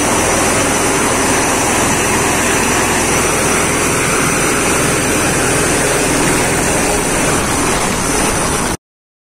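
Heavy surf breaking and washing over a rocky shore, a loud continuous rush that stops abruptly near the end.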